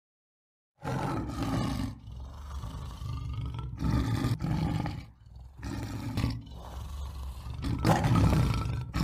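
Lion roaring: a run of rough roars with short breaks between them, starting about a second in and loudest near the end.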